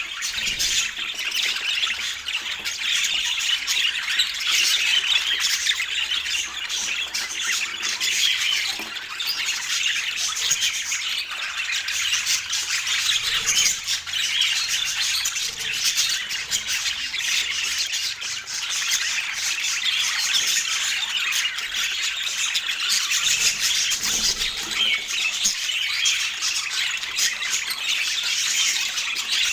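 Budgerigar warbling and chattering continuously, a dense unbroken stream of quick chirps and scratchy squawks.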